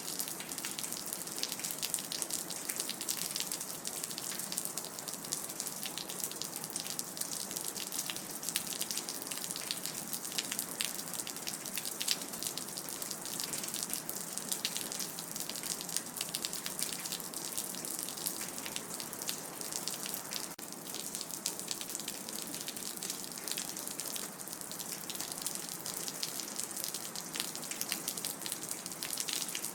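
Rain dripping: a steady patter of many small drops, thick and continuous, over a light wash of running water.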